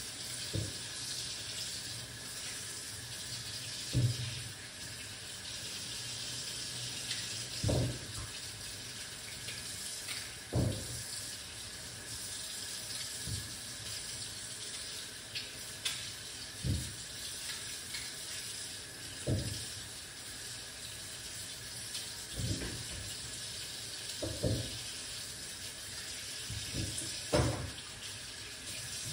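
Water running steadily from a kitchen tap, cut off near the end, with a dull knock every few seconds.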